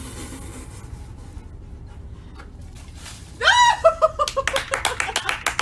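Someone bursting into high-pitched laughter about three and a half seconds in: a rising-then-falling first note, then quick falling "ha-ha" notes, followed by a rapid run of sharp slapping or clapping sounds.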